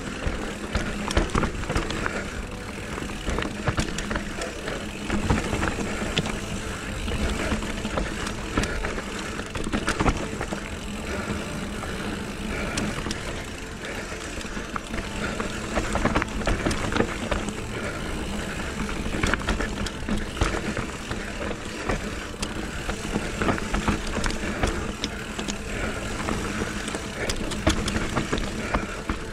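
Specialized electric mountain bike descending a very steep, rough trail: tyres on dirt with frequent knocks and rattles from the bike over bumps, and wind on the microphone.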